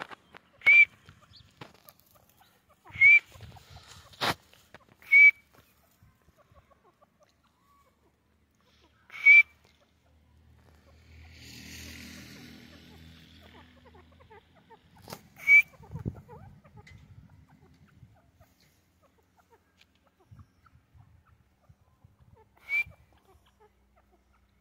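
Female grey francolin (Sindhi teetar) giving short, sharp whistled call notes, six single notes spaced a few seconds apart, each with a quick upward flick. A sharp click about four seconds in, and a faint low hum swells and fades in the middle.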